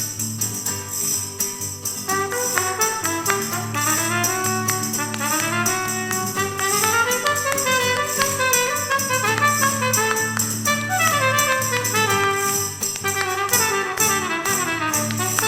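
Brass ensemble playing the instrumental opening of a cueca, with the brass melody coming in about two seconds in over a steady low bass tone.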